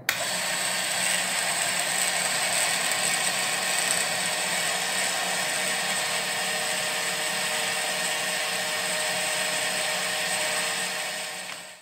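Van de Graaff generator running: its electric motor and belt whir steadily with a high whine while it builds up a static charge, fading away near the end.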